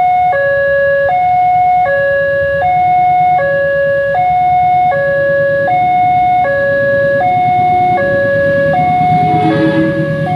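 Railway level-crossing warning alarm sounding a steady electronic two-tone call, high and low notes alternating about twice a second. A low rumble grows underneath near the end.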